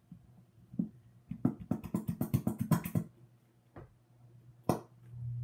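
Plastic bottle of clear glue being squeezed upside down over a plastic bowl: a quick run of clicks and pops for about a second and a half, then one more click near the end.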